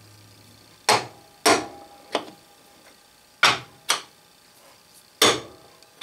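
Steel push-button magnetic indicator base clacking down onto a steel plate: six or seven sharp metal clacks, irregularly spaced, some ringing briefly.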